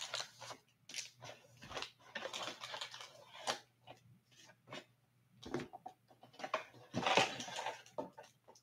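Hands handling and opening a cardboard trading-card hobby box, making irregular scrapes, taps and rustles, with longer rustling stretches about two seconds and seven seconds in.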